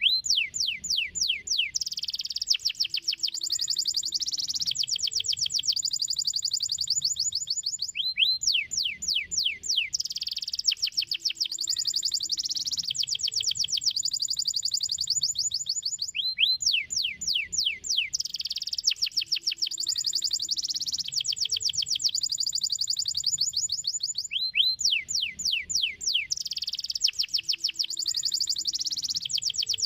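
Domestic canary singing: a phrase of rapid falling whistled sweeps that runs into long, fast, high trills. The same phrase recurs about every eight seconds.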